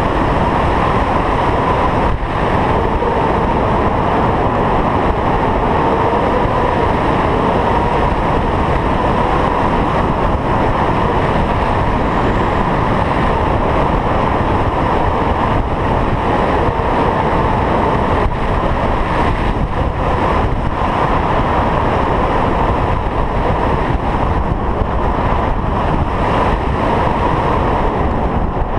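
Wind rushing over a camera mounted on a hang glider's wing in flight: loud, steady wind noise on the microphone, with a faint steady tone running through it.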